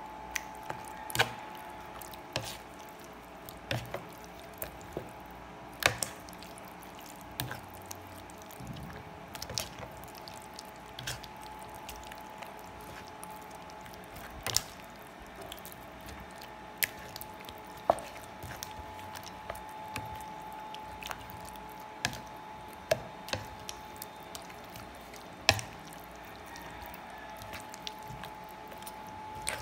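Raw chicken pieces being stirred through thick wet batter with a metal utensil: wet squishing, with irregular sharp clicks every second or two as the utensil knocks against the plate, over a faint steady hum.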